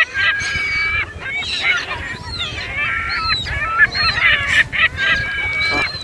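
A flock of gulls and other waterbirds calling over one another: many short, overlapping squawks.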